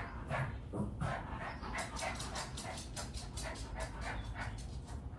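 A dog panting quickly and evenly, about four or five breaths a second, faint.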